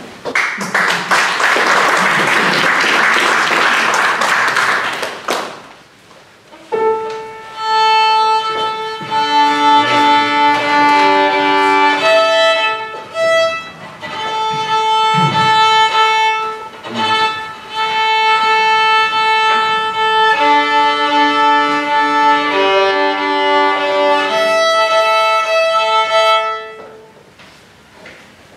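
Audience applauding for about five seconds, then a violin, accompanied by piano, plays a slow melody of long held notes that ends a little before the close.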